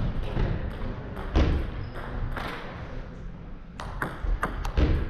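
Table tennis ball clicking off the table and rackets in a practice rally, sharp separate ticks about a second apart, coming quicker near the end.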